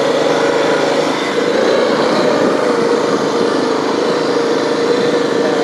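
Four-wheeler (ATV) engine running steadily while riding, a constant hum that wavers slightly in pitch.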